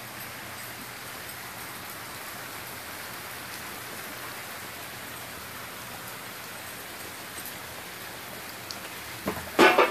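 Steady rain falling on grass and pavement. Near the end a sudden, loud, pitched call breaks in.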